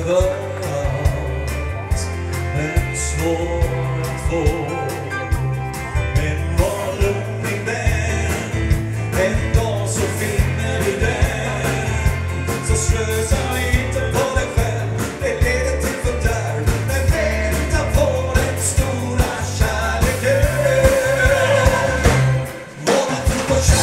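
Country-gospel song with singing over guitar and a steady bass line. The music briefly dips about a second before the end.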